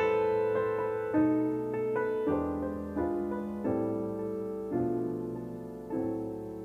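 Jazz piano playing a slow ballad. Chords are struck about once a second and each is left to ring and fade.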